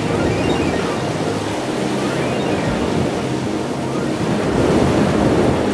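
Ocean surf breaking and washing up a wide sandy beach, a steady rush of waves.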